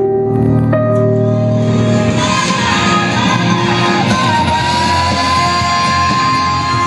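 A song with singing played over a pair of small bookshelf speakers driven by a Marantz 1250 amplifier. A quiet opening of held tones gives way, about two seconds in, to fuller music with a long held note.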